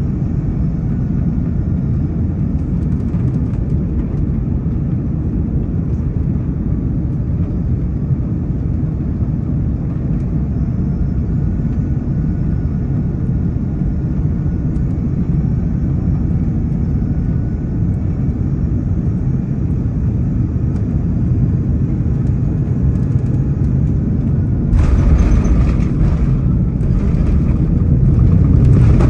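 Steady low rumble of engine and airflow inside an airliner's cabin on final approach. About four seconds before the end, touchdown: the noise jumps suddenly, louder and brighter, with the rumble and rattle of the wheels rolling on the runway, and it grows louder again near the end.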